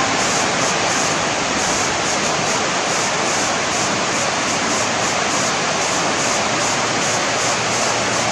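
Steady rush of water falling over a concrete weir, an even hiss with no breaks.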